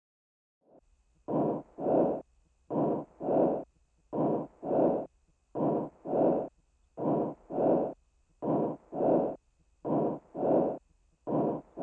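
Lung breath sounds: a breathy in-and-out pair that repeats about every one and a half seconds, about eight times, starting about a second in.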